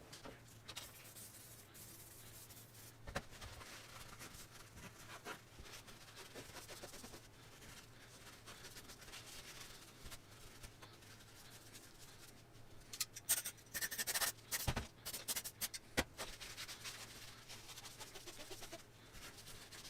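Faint scraping and rubbing of hydraulic cylinder parts being handled, with a few sharp clicks and a busier run of scratching about two-thirds of the way through.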